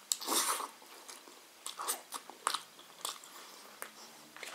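Close-up mouth sounds of a person chewing a mouthful of curried boiled egg: a louder stretch as the food goes in, then short wet smacks and clicks every half second or so.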